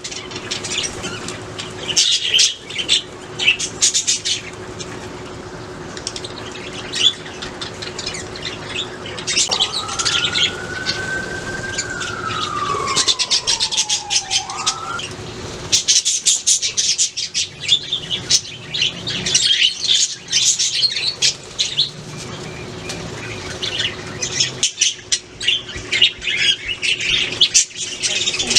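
Budgerigars chirping and chattering in dense, overlapping bursts of short high notes. About ten seconds in, a long whistle rises slightly and then glides down over about five seconds.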